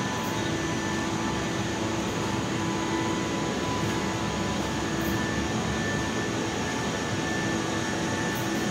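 Steady, even rushing noise with a few faint held tones underneath, unchanging throughout.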